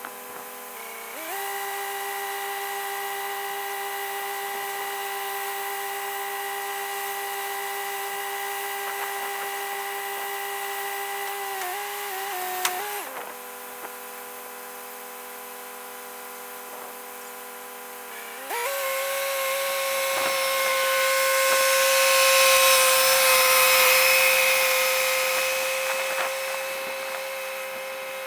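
Massey Ferguson 375 tractor running with a Massey Ferguson/Hesston round baler. The engine steps up to working revs about a second in, drops back to idle around the middle, and comes up again soon after. A louder, noisier stretch of machine clatter builds and fades in the second half.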